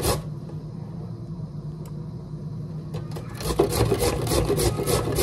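A carrot being grated on a stainless steel box grater: quick rasping strokes, about four a second, with a quieter stretch in the first half before the strokes pick up again.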